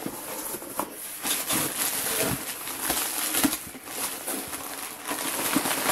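Packing material and cardboard rustling and crinkling as a shipping box is unpacked by hand, with scattered small clicks and knocks.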